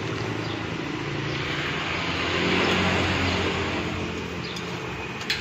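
A motor vehicle's engine running nearby, a steady low hum over a steady hiss, with a short sharp click about five seconds in.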